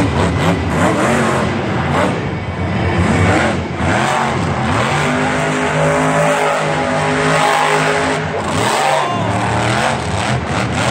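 Monster truck engine revving, its pitch sweeping up and down, then holding a steady high rev for a few seconds in the middle before dropping and rising again.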